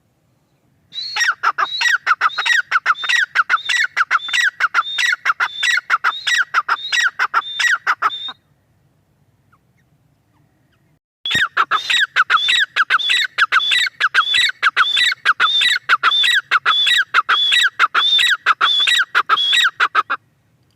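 Grey francolin (teetar) calling in two long bouts of fast, evenly repeated shrill notes, about three a second, with a pause of about three seconds between the bouts.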